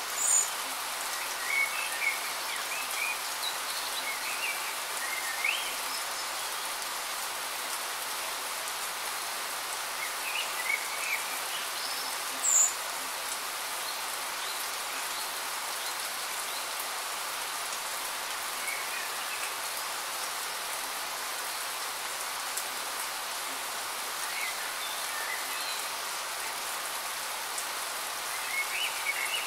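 Steady rain falling, an even hiss, with a few short bird chirps now and then.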